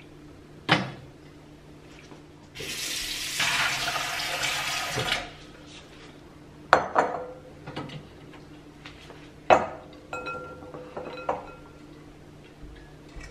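Hot water from boiled pomelo peel poured through a colander into a stainless steel sink, a splashing pour lasting about two and a half seconds. It is framed by knocks and clatters of bowls and the colander being set down and handled: one knock before the pour and a few sharper clatters after it.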